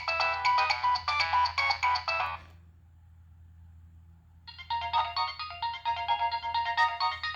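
Preloaded ringtones on a Nokia 6015i cell phone. One synthesized ringtone melody ends about two and a half seconds in, and after a pause of about two seconds the next ringtone begins.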